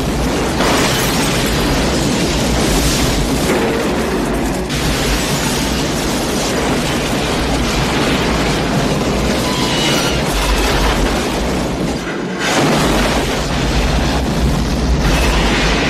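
Film sound effects of a train crash: a loud, continuous wall of explosions and crashing rumble, with a brief drop about twelve seconds in before it resumes.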